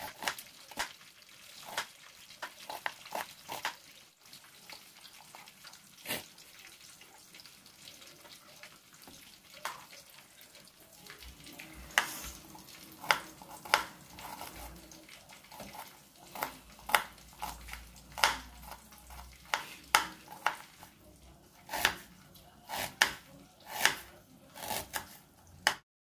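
Kitchen knife slicing and chopping an onion on a wooden cutting board: irregular knocks of the blade against the board, getting louder and quicker about halfway through.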